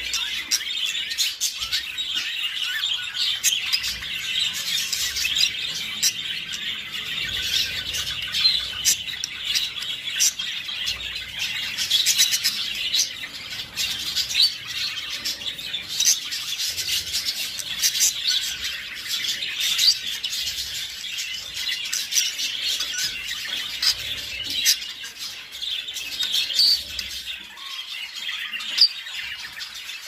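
Budgerigars chattering and warbling without a break, a dense run of quick chirps and squawks. It is the courtship and mating chatter of a budgie pair.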